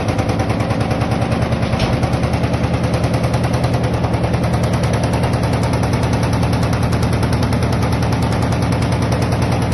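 LG washing machine running with a rapid, even rattle, many knocks a second, over a steady low hum.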